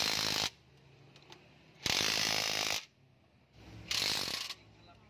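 A long-handled ratchet wrench clicking in three quick runs, each under a second, as its handle is swung back between pulls while cylinder head bolts are tightened.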